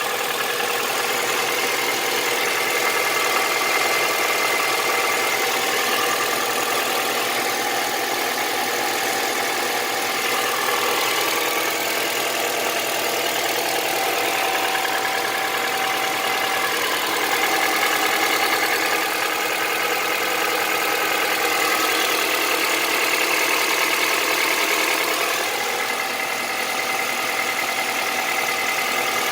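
Honda CR-V 2.4-litre petrol inline-four idling cold with a steady, rapid knock that makes it run like a diesel. The knock comes from the left side of the engine. The owner has adjusted the valves and does not take it for valve noise.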